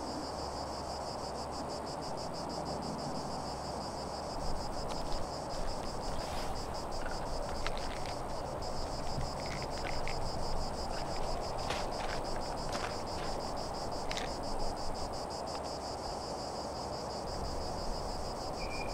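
Insect chorus trilling steadily in a fast, even pulse over a soft outdoor hiss, with a few short clicks and rustles in the middle.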